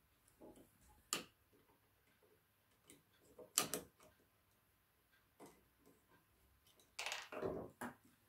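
Sparse small clicks and taps from a Phillips screwdriver driving a small screw and a ground wire being fitted on the frame of an Ortur laser engraver, with a longer scraping rattle near the end.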